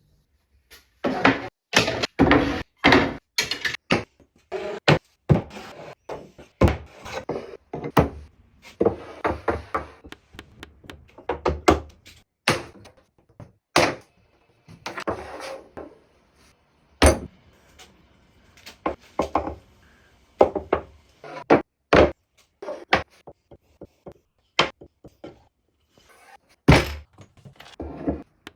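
Wood being worked by hand: an irregular run of sharp knocks and thunks of wooden pieces struck and set down, some in quick clusters, with a few short noisy stretches between them.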